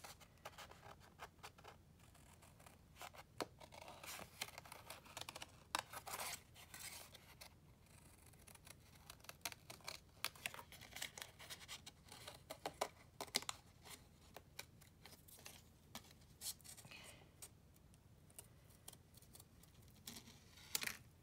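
Scissors snipping through painted paper to cut out small leaf shapes: faint, quick snips in short runs with pauses between them.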